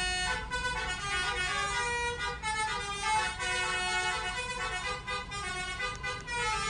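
Telolet horn: a set of multi-tone air trumpets sounding several notes at once and switching between pitches every fraction of a second, playing a quick jingling melody.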